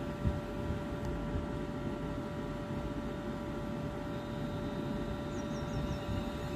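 Stationary Siemens Desiro Class 360 electric multiple unit humming steadily at a platform: its onboard electrical equipment gives a low rumble and several steady tones.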